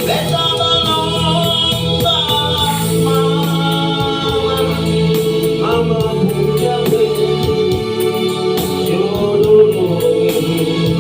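Singing with instrumental accompaniment, in a gospel style.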